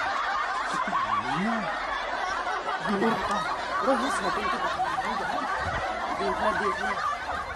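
Continuous snickering and chuckling laughter from several overlapping voices, with a few low voice sounds underneath.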